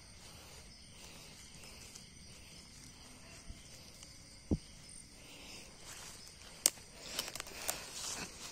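A steady high chirring of night insects, with dry leaf litter rustling and crackling as mushrooms are pulled out by hand, the rustling busiest over the last two seconds. A short low thump comes about halfway through and a sharp click about two-thirds through.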